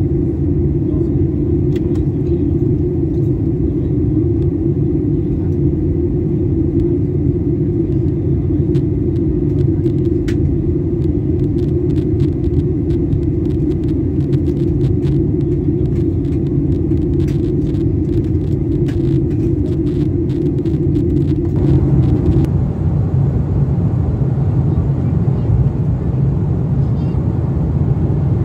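Steady in-flight cabin noise of a Boeing 737-800, engines and airflow with a strong hum and scattered clicks. About three quarters of the way through it changes to a Boeing 777-300ER's cabin noise, a steady deeper rumble without the hum.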